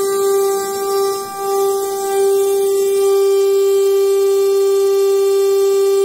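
STL-10 rotating outdoor warning siren sounding a steady single tone at full speed during a tornado siren test. Its loudness dips briefly about a second in as the rotating horns turn away, then holds steady.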